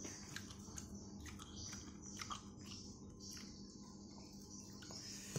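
Faint, crisp crackles of raw napa cabbage leaves being torn apart by hand, as scattered short ticks. A steady high hiss and a low hum run underneath.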